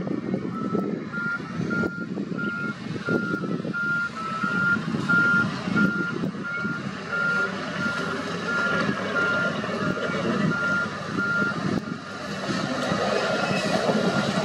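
A heavy machine's reversing alarm beeping at an even pace, about two beeps a second, over the diesel engine of a wheel loader working as it pushes soil and rock.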